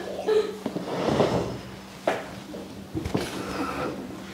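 A metal-legged classroom chair pulled out across the floor and sat on: a scrape about a second in, then a few light knocks of the chair against the floor and desk.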